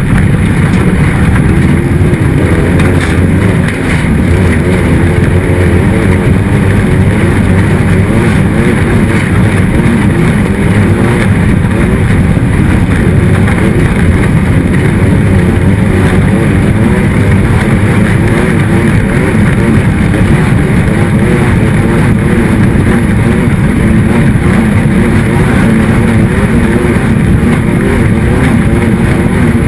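Race car engine running hard and loud, its pitch rising and falling steadily as it works through the laps.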